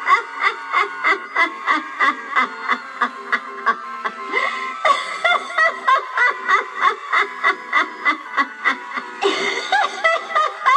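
Spirit Halloween Harriet Hustle animatronic clown's built-in speaker playing a recorded cackling laugh loop, rapid evenly spaced pulses, over music.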